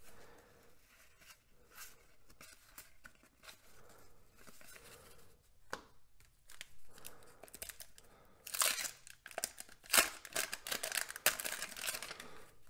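A 1989 Donruss wax pack's waxed-paper wrapper being torn open and crinkling, in several loud ripping bursts starting about two-thirds of the way in. Before that, only faint soft ticks of cards being handled.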